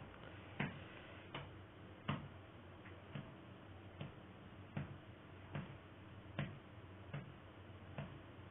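Faint, regular ticking, one tick about every three quarters of a second, like a clock, over a low steady hum.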